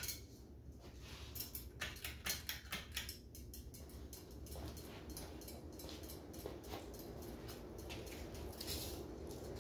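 1986 Moss Marco Polo ceiling fan running up on high speed: a steady low rumble of moving air, with a hum that builds from about halfway in. A run of light clicks comes in the first three seconds.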